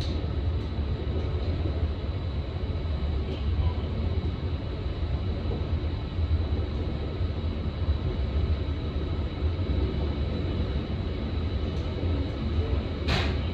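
Electric commuter train running along the line, heard from inside at the front: a steady low rumble of wheels and running gear, with a short sharp noise near the end.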